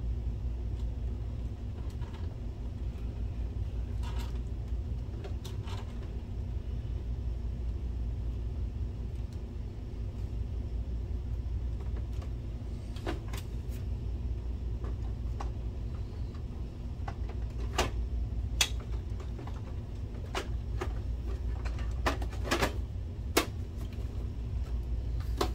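Scattered light clicks and knocks of plastic parts as a projector's ribbon cable is reconnected and its plastic top cover is fitted, the knocks coming more often in the second half, over a steady low rumble.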